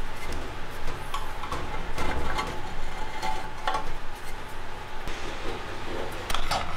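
Metal scraper scraping old gasket material off the flanges of an engine oil pan and engine cover: irregular scrapes with sharp clicks of metal on metal.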